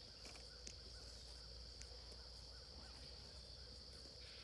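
Faint, steady chorus of crickets, with a couple of soft clicks in the first two seconds.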